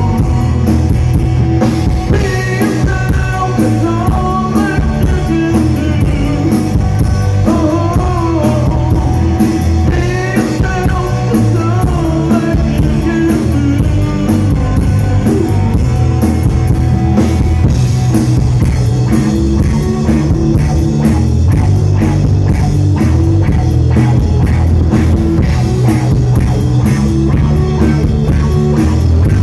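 Rock music with a drum kit and guitar playing throughout and a sung vocal over roughly the first half.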